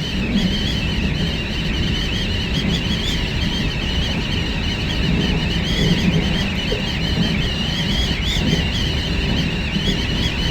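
Hakodate Liner train in motion, heard from inside at the window: a steady low running rumble under a continuous high whistle that wavers in pitch, wind noise at the window.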